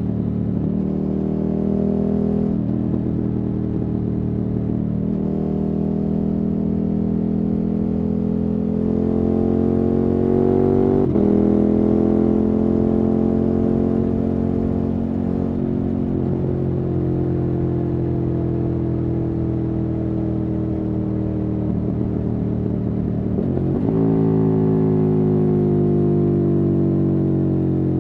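KTM 1290 Super Adventure S's V-twin engine through a Wings aftermarket exhaust, pulling up through the gears with rising revs and upshifts about 2, 5 and 11 seconds in. The revs then slowly sink. Near the end they jump up with a downshift and fall away again.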